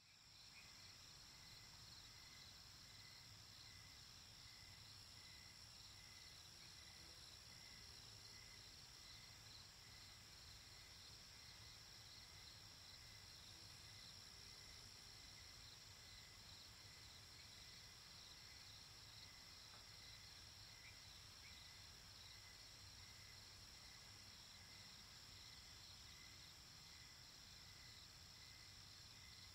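Near silence: a faint steady high-pitched hiss and whine with a faint, evenly pulsing chirr underneath.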